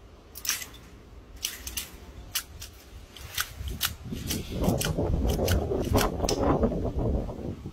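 Irregular sharp plastic clicks and snaps from a toy grabber-claw lollipop holder whose jaws are squeezed open and shut. From about four seconds in a low rumbling noise joins them.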